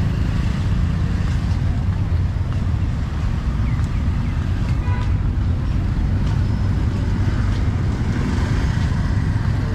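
Street traffic ambience of motorbikes, cars and tuk-tuks, under a steady low rumble of wind buffeting the microphone.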